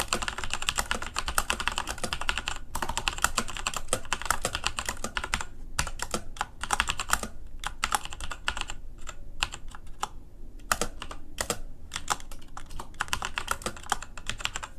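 Fast typing on a Patriot Viper V760 mechanical keyboard with Kailh brown switches: rapid streams of key clicks with a few brief pauses.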